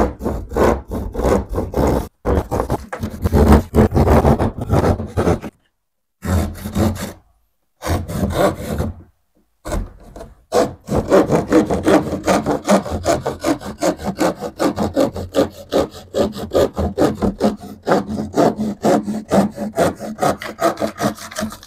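Hand pad saw cutting through plasterboard in rapid back-and-forth strokes. The cutting stops briefly a few times in the first half, then runs steadily through the second half.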